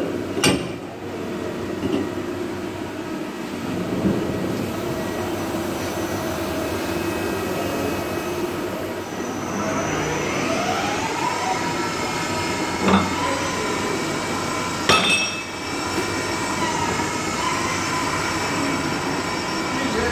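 Machine-shop machinery running steadily, with a few sharp knocks. About halfway through, a motor spins up with a rising whine that then holds at a steady pitch.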